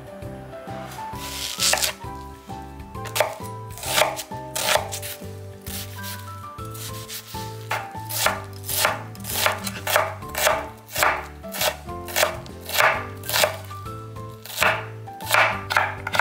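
A chef's knife chopping onion and then cutting carrot on a wooden cutting board. The strikes are sparse at first, turn into a steady rhythm, and come faster near the end. Background music plays underneath.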